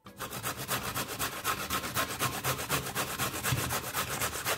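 A radish being grated by hand on a fine grater: quick, even rasping strokes, about five a second.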